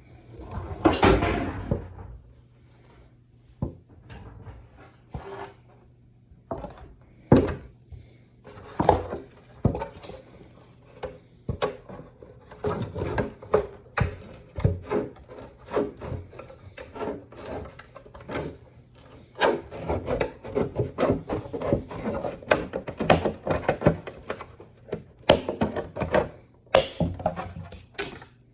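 A plastic armour piece being trimmed and handled: irregular scraping and rubbing strokes mixed with sharp clicks and snaps.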